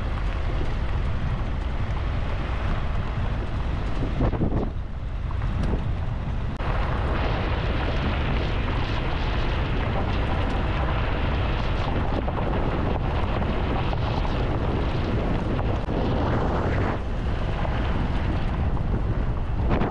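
Wind buffeting a microphone held out of the window of a Fiat Ducato camper van moving along a gravel road, over the steady noise of the van's tyres on the gravel and its engine. The wind eases briefly about four and a half seconds in.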